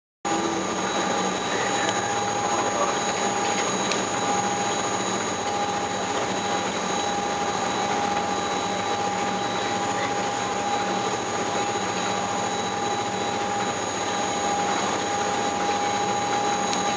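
Steady drone of a high-speed shuttle boat under way, heard inside its passenger cabin: a dense machinery rush with several steady high whining tones, unchanging in level.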